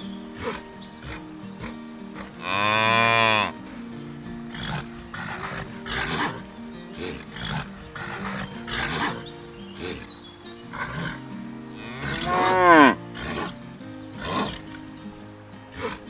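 Cattle mooing twice: a loud call about two and a half seconds in lasting about a second, and a shorter one near the end whose pitch falls away, over background music with a steady beat.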